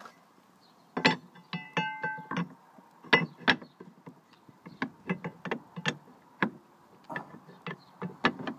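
A homemade hydraulic ram being fitted onto an outboard motor's mounting bracket: repeated metal clanks and knocks throughout, with a brief metallic ring of several tones about one and a half seconds in.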